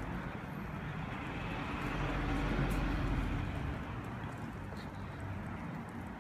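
Street traffic noise, a low rushing sound that swells about two to three seconds in as a vehicle goes by, then fades.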